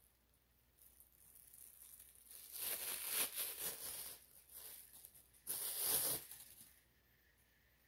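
Rustling, crinkling noise in two bursts, the first a couple of seconds long about two and a half seconds in, the second shorter and sharper about five and a half seconds in.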